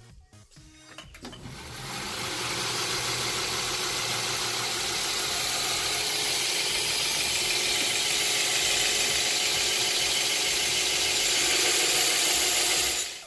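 Belt grinder running over a 3-inch contouring wheel, with a small multi-tool held against the belt to grind a texture into it: a steady, loud grinding hiss. It comes up about a second and a half in and cuts off suddenly at the very end.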